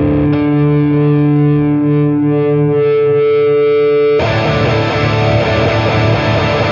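Electric guitar played through distortion. A sustained chord rings and holds for about four seconds, then the sound abruptly becomes fuller and busier.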